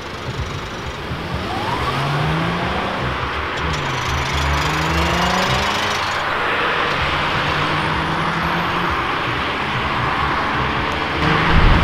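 Cars pulling away from a junction in turn, an engine rising in pitch as it accelerates, dropping about four seconds in at a gear change and rising again, over steady tyre and road noise. Another car gets louder near the end.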